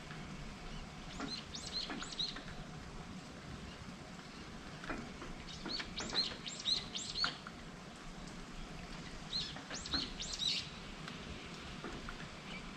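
A songbird calling in three short bursts of quick repeated chirps, over the steady hiss of falling rain.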